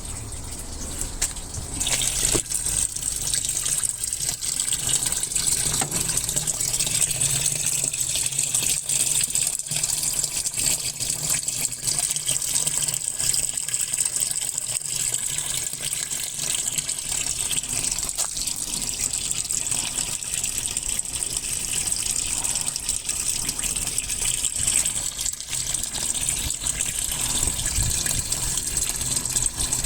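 Water gushing into the tub of a Muji M-W42D 4.2 kg fully automatic washing machine as it fills, starting abruptly about two seconds in and then running steadily.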